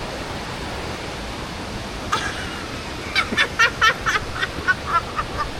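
Steady rushing of a waterfall or fast mountain stream. About two seconds in, and again from about three seconds, a quick run of short high-pitched sounds, about four a second, fading toward the end.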